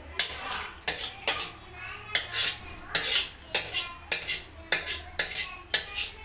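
A metal ladle clinking and scraping against a large aluminium degh and splashing stock, in quick strokes about twice a second, as chicken yakhni is ladled over rice.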